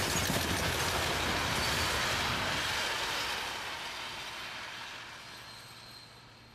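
A train passing at speed: the rush and rumble of its wheels on the rails, fading steadily away.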